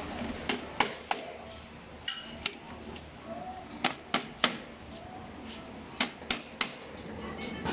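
Sharp knocks of aluminium rack parts being tapped into place during assembly, mostly in quick groups of three taps.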